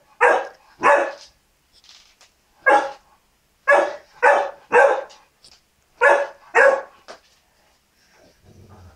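St Bernard puppy barking in short, sharp barks, about eight of them in pairs and a triple, as it tries to get a chew away from another dog.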